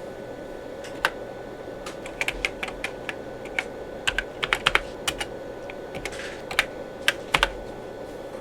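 Typing on the Tandy 1000 EX's keyboard: irregular key clicks, quickest in a run in the middle, over a steady hum.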